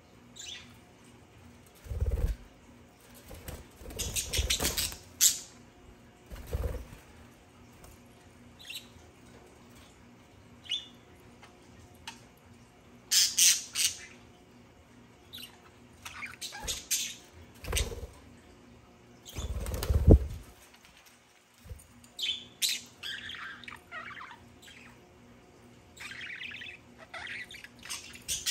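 Budgerigars' wings flapping in short flurries with low bumps as they fly and land, then chirps and chatter in the last third.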